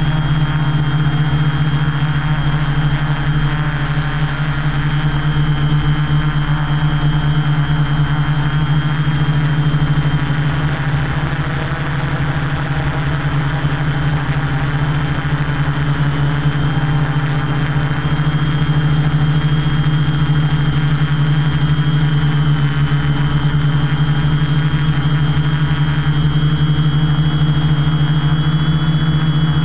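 Quadcopter's electric motors and propellers humming steadily in flight, with a thin high whine over a low hum, heard from the microphone of the camera mounted on the quadcopter.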